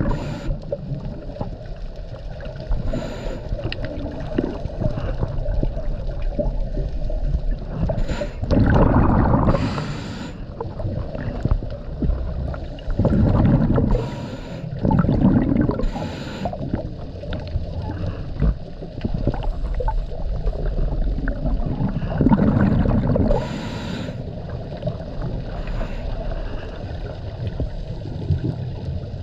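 A scuba diver breathing through a regulator underwater: hissing inhalations and gurgling bursts of exhaled bubbles, repeating every few seconds.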